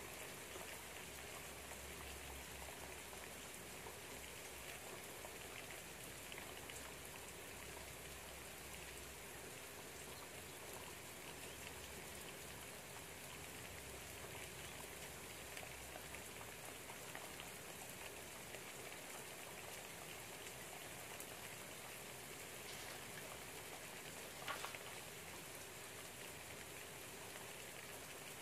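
Steady light rain pattering outside a window, with faint drips throughout. A single brief, louder sound comes near the end.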